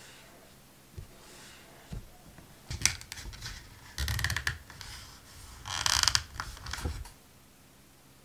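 Leather card wallet being worked by hand: a wooden tool is pushed into and worked inside the card slot, giving several bursts of leather rubbing and scraping with a few light taps and clicks. The loudest bursts come about halfway through.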